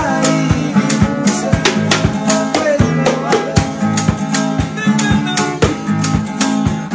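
Malawian band music: an acoustic guitar strummed and plucked over a bass line, with a cowhide hand drum keeping a steady beat of about four strokes a second. A voice sings briefly around the middle.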